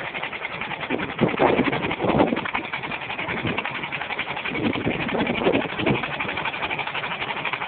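Rover coupe's four-cylinder engine, with two spark plugs out so it fires on only two cylinders, held flat out on the rev limiter: a harsh, rapid pulsing with uneven louder surges.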